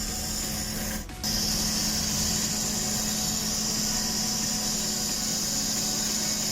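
Electric water pump running with a steady hum and a high, even hiss. The sound drops out for a moment about a second in, then carries on unchanged.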